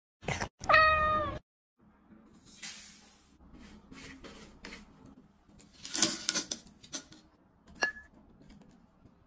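A cat meows once, a short call about a second in, followed by quiet scattered clicks and taps, with a sharper knock near the middle.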